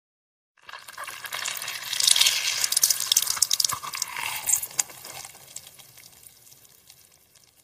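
A cut lemon half squeezed hard in the hand: the pulp crackles wetly as juice runs out. It starts about half a second in, is loudest in the middle, and fades away near the end.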